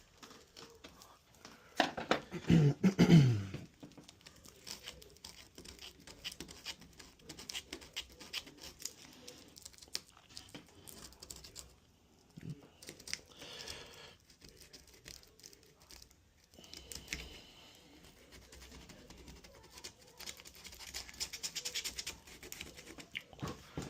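Hand wood chisel paring and scraping wood from the edge of a wooden door, small irregular scrapes and taps as wood is shaved out to fit a deadbolt's mortise. A louder sound with a falling pitch comes about two seconds in, and a denser stretch of scraping near the end.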